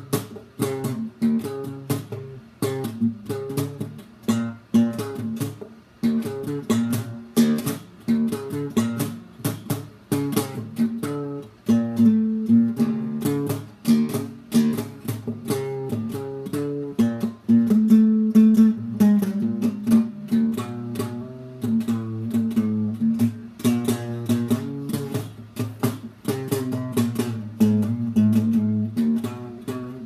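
Guitar playing a fast, continuous run of picked notes over lower bass notes, with no singing.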